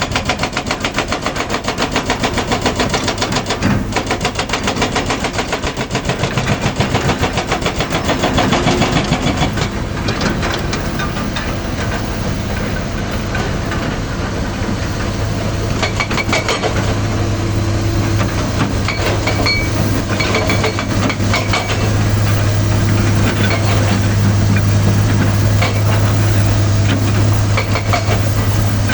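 Excavator's diesel engine running with a fast, even pulsing; a steady low hum comes in more strongly about halfway through.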